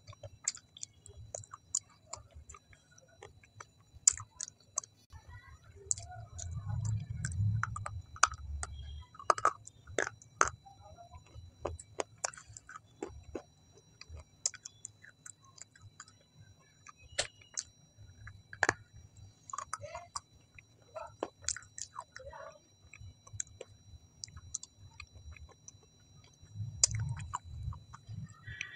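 Close-miked ASMR chewing with the mouth closed: many scattered sharp, wet mouth clicks and smacks. A low muffled rumble comes in about six seconds in and again near the end.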